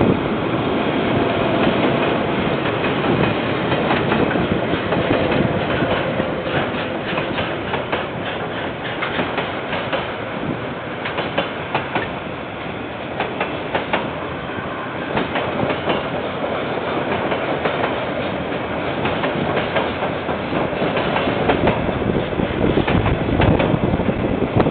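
KiwiRail freight train's container wagons rolling past, a steady rumble with a continuous run of wheel clicks, picked up by a security camera's microphone.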